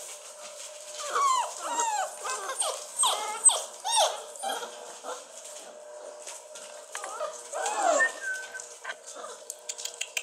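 Basset hound puppies whining and howling: a cluster of short cries that bend and fall in pitch in the first half, then one longer cry about eight seconds in. Light ticks and rustles near the end.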